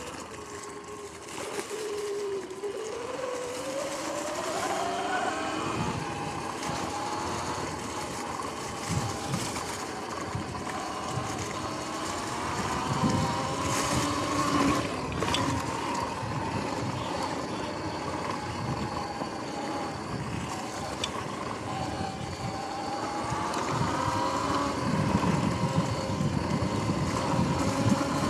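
Sur-Ron X electric dirt bike's motor and drivetrain whine, rising and falling in pitch as the bike speeds up and slows, over the rumble of knobby tyres on grass and dry leaves with scattered bumps.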